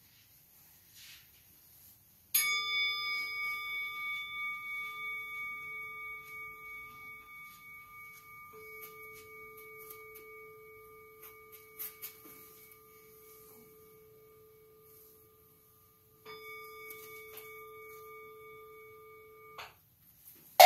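Zen temple bowl bell struck about two seconds in, ringing with a slow, wavering fade for over ten seconds. It is struck again about sixteen seconds in, and that ring stops short about three seconds later.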